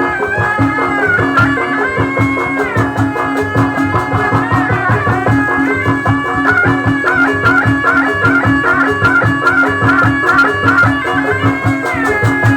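Traditional folk music: a reed wind instrument plays an ornamented, wavering melody over a steady drum beat.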